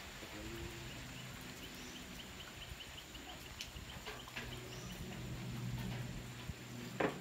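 Rainforest ambience with the low drone of an aircraft passing overhead, swelling toward the end. Over it runs a quick series of high chirps, about four a second. A single sharp click comes near the end.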